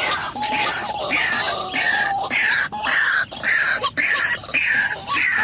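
White-breasted waterhen (ruak-ruak) calls, loud and harsh, repeated about twice a second, each call falling in pitch: the bird's lure call used in trapping.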